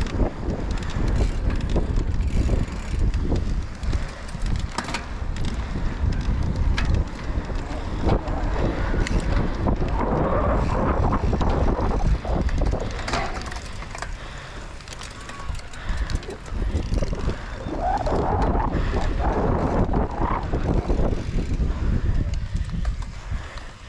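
Bicycle ridden hard over a rough dirt race course, heard from a camera on the bike or rider. Wind buffets the microphone over the rumble of the tyres, and the frame rattles and knocks over bumps again and again.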